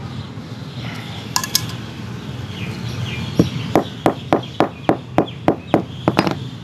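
Small hammer striking nylon trimmer line on a concrete slab: two light taps a little over a second in, then a run of about ten sharp strikes at roughly three a second. The hammering flattens the line so it locks tight in the trimmer's cutting disc.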